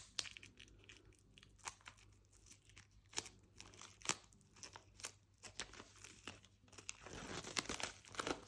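Plastic wrap being torn and peeled off an album package: scattered sharp crackles and tears, turning into denser crinkling near the end.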